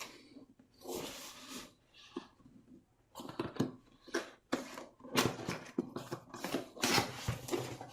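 A cardboard retail box being opened and handled: irregular clicks, knocks and short scraping, sliding swishes of cardboard and packaging.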